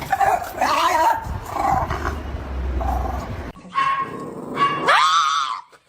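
A dog vocalizing: rough barks and grumbles for the first few seconds, then longer pitched calls, the last rising in pitch near the end.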